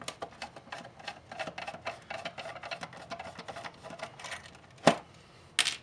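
A screwdriver backing a screw out of a plastic flashlight housing: a rapid run of small clicks and scrapes, with a sharper knock about five seconds in and another just before the end.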